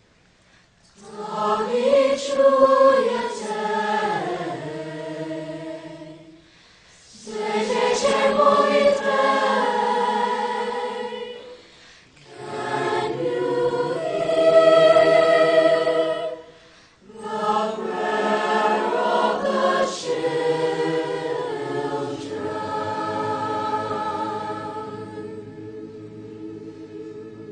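Background music: a choir singing slow, held phrases, four of them with short pauses between, the last one fading out near the end.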